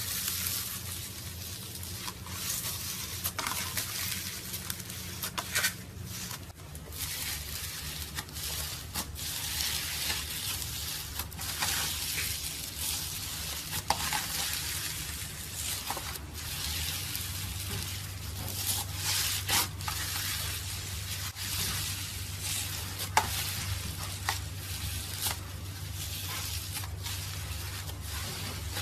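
Slime being worked by hand: continuous wet crackling and squishing with many small pops and clicks.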